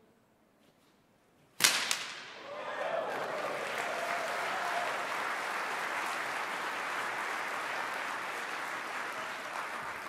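A homemade 8-foot bullwhip braided from computer cables, with a nylon cracker, cracks once sharply about a second and a half in. An audience applauds right after.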